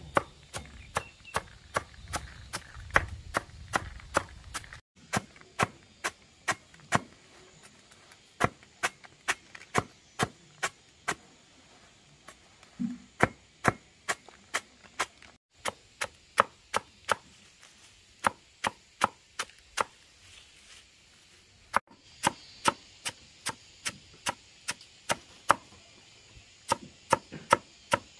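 Knife chopping on a cutting board: a long run of sharp chops, about two a second, quickening to about three a second near the end.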